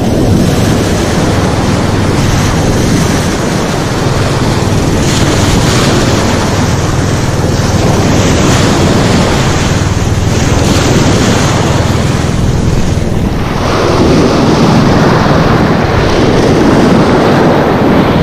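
Sea surf breaking and washing in foam close around the microphone, a continuous rushing wash, with wind rumbling on the microphone.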